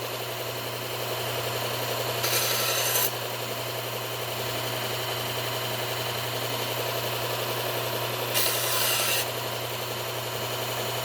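Belt sharpener with a 120-grit Cubitron belt running steadily, with two short hissing passes of a knife edge against the belt, about two seconds in and again near the end.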